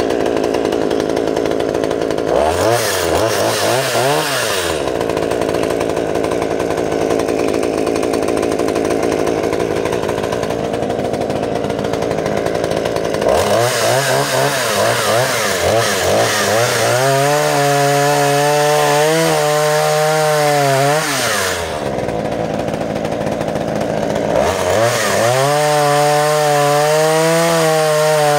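Villager VGS 260 one-handed top-handle chainsaw's small two-stroke engine idling and revved three times: briefly about two seconds in, then held high for several seconds in the middle, and again near the end as the chain cuts into a log.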